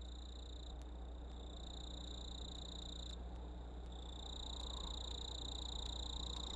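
Night ambience: a steady high insect trill that stops briefly a few times and grows a little louder after about four seconds, over a low hum.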